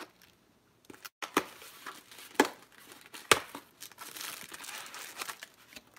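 Small cardboard box being opened by hand: three sharp snaps in the first half, then plastic wrapping crinkling as the item inside is pulled out and unwrapped.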